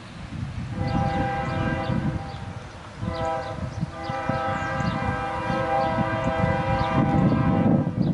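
Diesel locomotive air horn sounding two long blasts, about two seconds and then about five seconds with a brief gap between, the train's warning as it approaches the grade crossing. A low rumble runs underneath and grows stronger near the end.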